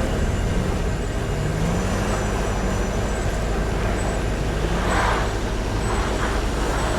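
Heavy vehicle engine running over steady low traffic rumble, its pitch climbing in short rises as it accelerates on the snowy road, with a couple of brief bursts of noise near the end.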